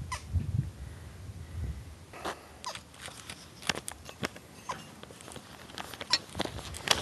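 Handling noise from a handheld camera: a low rumble of rubbing at first, then scattered light clicks and scrapes as fingers work right at the microphone.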